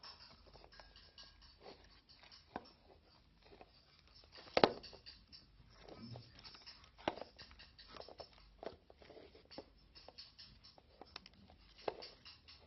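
Irregular small taps, clicks and handling noises from slime-making, with one sharper knock about four and a half seconds in.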